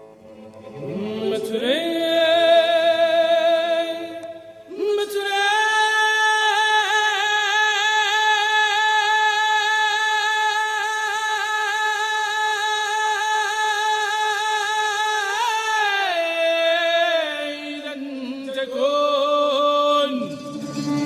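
A single voice chanting wordless long notes with vibrato: a slide upward into a note, a short break, then one long note held for about ten seconds before it falls away to lower notes.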